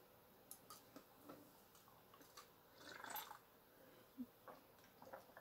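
Near silence: faint swallowing and a few small ticks as a person drinks from a glass, with a slightly louder soft sound about three seconds in.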